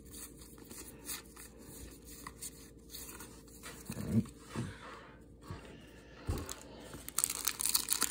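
Trading cards handled and squared up into a stack, with a few soft knocks. About seven seconds in comes a louder crinkling and tearing of a foil card-pack wrapper being ripped open.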